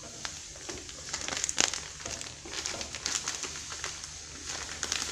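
Granulated sugar pouring from a plastic bag into a heavy pan: a hiss of falling grains with irregular crinkles and crackles from the bag.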